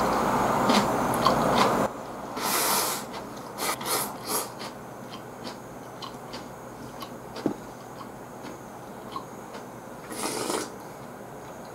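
Close-up eating sounds: chewing, with small clicks of chopsticks against a rice bowl and a few breathy sniffs. About ten seconds in there is a brief slurp from a bowl of miso soup. A steady rushing noise fills the first two seconds and stops suddenly.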